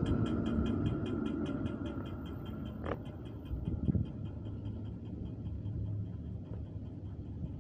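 ForCity Smart Artic X34 tram passing close and pulling away, its running rumble and a high whine fading as it goes. A rapid even ticking, about six a second, fades with it, and there is a sharp click about three seconds in.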